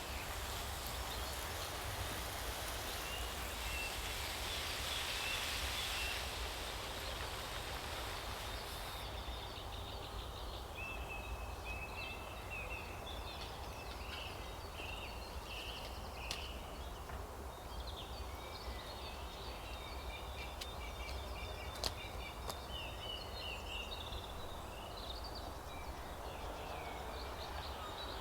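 Birds chirping and twittering in short calls from about ten seconds in, over a steady low rumble of outdoor background noise; a hiss in the background stops about nine seconds in.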